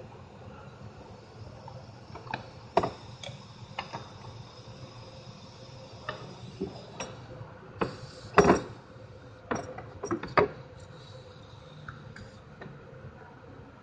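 Irregular metallic clinks and knocks, about ten, from tools and engine parts being handled in a car's engine bay around the belt pulleys. The loudest knocks come a little past the middle, over a steady faint low hum.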